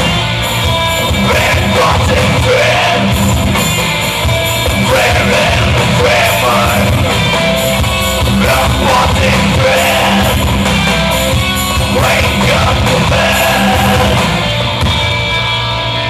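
Metal band playing live: distorted electric guitars, drums and shouted vocals, loud and continuous.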